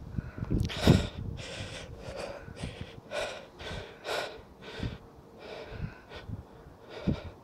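A person breathing hard in a string of sharp breaths and gasps, about one a second, while straining to haul in a snagged magnet-fishing rope.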